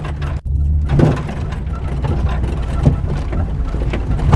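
Vehicle engine running steadily at low speed over a rough off-road trail, with scattered knocks and rattles from bumps.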